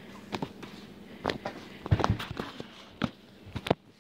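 Slime stretched and squeezed between the hands, giving a string of sharp, irregular pops and clicks, loudest about halfway through and just before the end.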